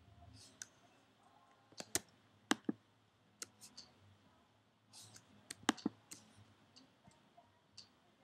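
Irregular clicks of a computer mouse as mesh faces are selected one by one in Blender, about a dozen sharp clicks with the loudest about two seconds in and again near six seconds, over a faint low room hum.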